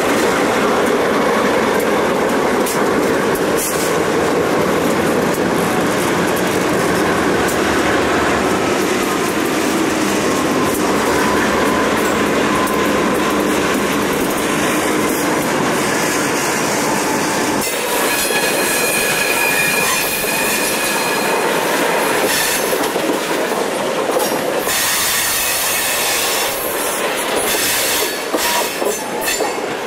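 Conrail freight train passing close by: diesel locomotives working, then open hopper cars rolling over the rails with clattering steel wheels. About two-thirds of the way through, the sound changes to a closer string of hoppers whose wheels give a steady, high squeal over the rolling noise.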